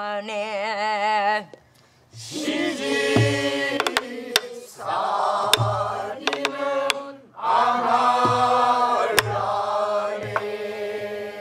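A woman holds the last note of a Namdo folk-song line with a wide vibrato and breaks off. After a short pause, about two seconds in, a group of voices sings the next phrases together. A buk barrel drum accompanies them with deep beats on the head and sharp cracks of the stick on the wooden rim.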